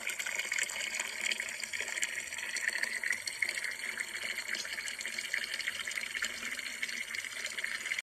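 Water pouring steadily from a spout and splashing, a continuous rushing, trickling sound.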